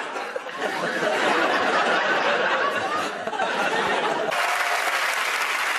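Studio audience laughing. About four seconds in there is a sudden cut to a smoother crowd sound of applause.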